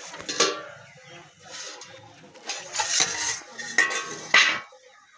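Aluminium plate lid clanking and scraping against a black iron kadhai as it is lifted off and set down, with several sharp metallic clanks that ring briefly.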